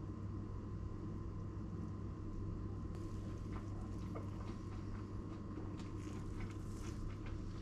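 Light clicks and scrapes of a metal fork and knife against a plate, starting about three seconds in and coming more often toward the end, over a steady low hum.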